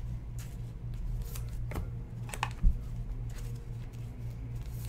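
Faint, scattered rustles and clicks of trading cards and their opened foil pack wrapper being handled, over a steady low hum.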